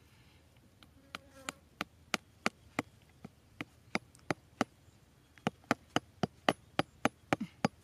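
Cleaver blade striking a thin wooden peg in a run of short, sharp taps, spaced out at first and coming faster, about three a second, in the second half.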